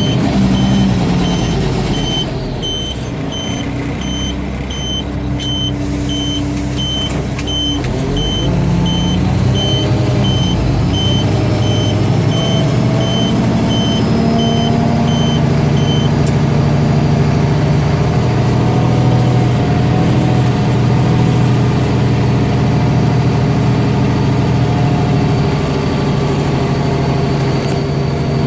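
Old Mack DM690 concrete mixer truck's diesel engine running, its pitch rising about a third of the way in and then holding steady. A reversing alarm beeps at a steady rate until about halfway through.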